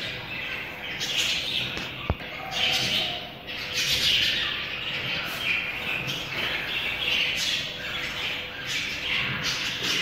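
Chickens calling, a busy stream of chirps and squawks, with a single knock about two seconds in.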